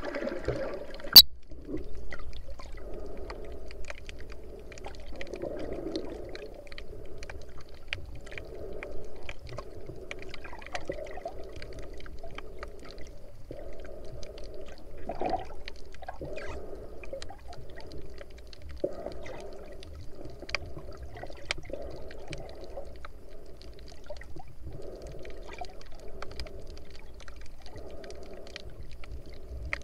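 Muffled underwater sound picked up by an action camera held below the surface: moving water that swells and falls every two to three seconds, with scattered small clicks and one sharp click about a second in.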